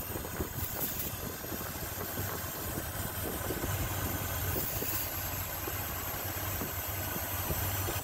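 Car engine idling with a vacuum leak from a disconnected brake booster hose. Its idle rises slightly as sprayed starter fluid is drawn in through the leak, and the spray can hisses briefly twice.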